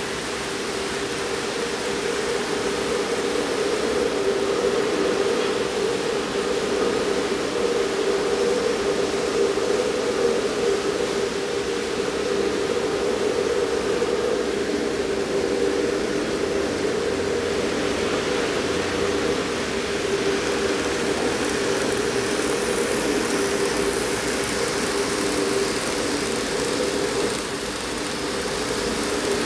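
Steady hum of N-gauge model trains running on the layout: electric motors whirring and wheels rolling over the track, with a faint low rumble building around the middle.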